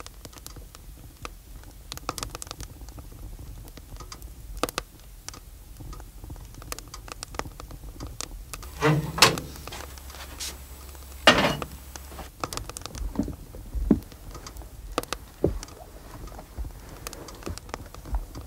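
Scattered small clicks and knocks of a wood-burning cookstove being tended, with two louder knocks that ring briefly, about nine and eleven seconds in.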